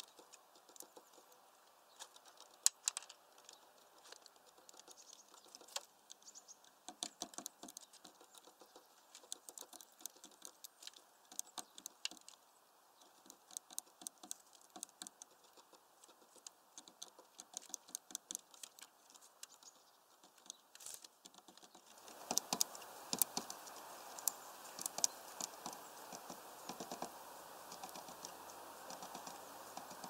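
Great tit pecking at a window bird feeder: rapid, irregular clicks and taps of its bill. A steadier background hiss comes up about two-thirds of the way through.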